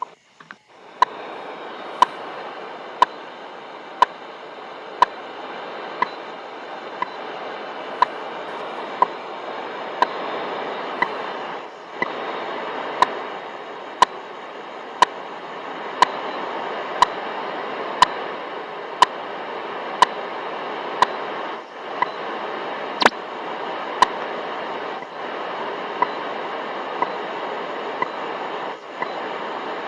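Shortwave receiver tuned to a time-signal station: a short tick about once a second over steady static hiss, with the signal fading briefly a few times.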